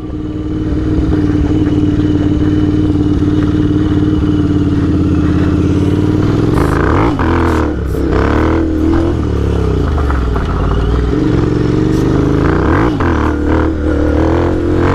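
Motorcycle engine idling steadily, then revved up and down several times from about six seconds in, the pitch rising and falling with each rev.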